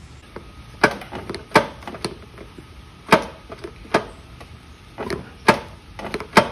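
Recoil pull-starter of a Suzuki 20 hp four-stroke outboard jerked over and over, each short pull stopping dead with a sharp knock, about eight in all at uneven spacing. The engine will not turn over, and the owner suspects it is locked up after overheating.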